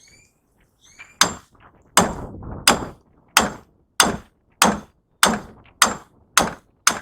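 A hammer strikes a chisel to cut the copper windings out of a scrap electric motor's stator: about ten sharp metallic blows, roughly one every two-thirds of a second, each with a brief ring.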